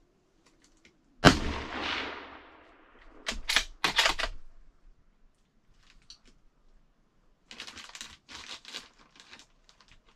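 A single gunshot fired from inside a small wooden hunting blind, loud and sharp, with its boom ringing off the walls for a second or two; it is the shot that takes a doe. About two seconds after it come a few sharp clicks and knocks, and lighter clicks and rustling near the end.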